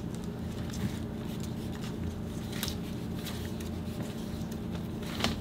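Quiet workshop room tone with a steady low hum, and a few faint clicks and taps as a plastic chainsaw starter pulley is handled and its new rope wound on.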